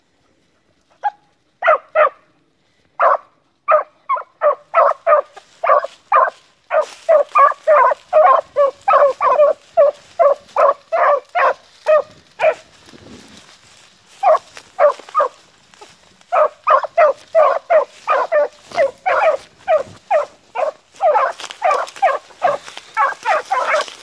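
Young beagle hounds giving tongue on a rabbit's scent trail: a steady run of short, choppy barks, two or three a second and overlapping at times as both dogs bark. The barking breaks off for a moment about halfway through, then picks up again.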